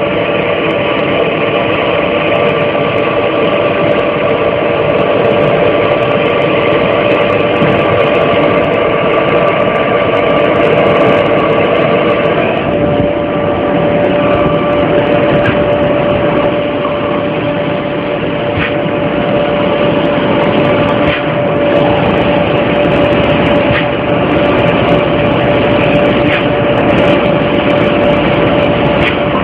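Vertical automatic glass sandblasting machine running: a loud, steady hiss of the abrasive blast nozzles with a steady machine hum whose tone shifts slightly about 13 seconds in.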